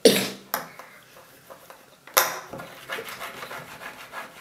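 Plastic Play-Doh molds and tools knocking and clattering on a table: a sharp knock at the start, another about two seconds in, then a run of lighter clicks and rubbing.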